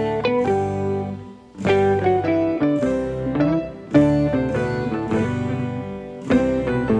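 Background music: a plucked-string melody of sharply struck notes that ring and fade, with a brief lull about a second and a half in.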